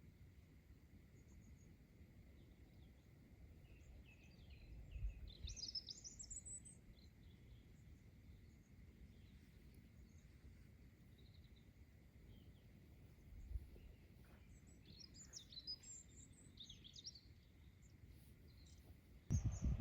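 Songbirds singing in two short bursts of high chirping phrases over a faint low rumble of breeze on the microphone; a louder low noise starts suddenly right at the end.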